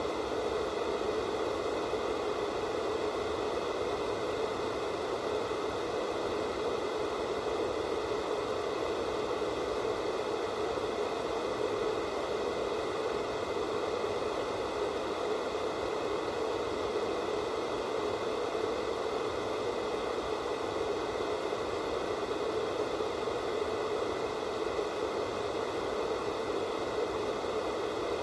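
Analog television static from a set receiving no signal: a steady, unchanging hiss, fullest in the lower middle range.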